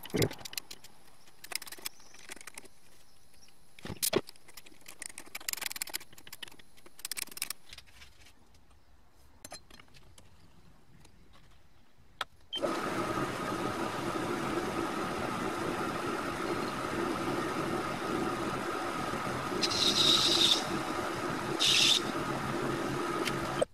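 Metal clicks and knocks as a brass workpiece is set in a lathe's three-jaw chuck. About halfway in, a TV-16 metal lathe starts and runs with a steady hum. Twice near the end, the turning tool cuts into the brass with a brief high hiss.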